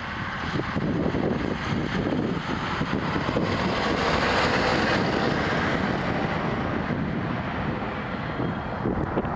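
EMD GT22CW diesel-electric locomotive running as it moves slowly past, its 12-cylinder 645 engine mixed with heavy wind noise on the microphone. The sound swells a little in the middle.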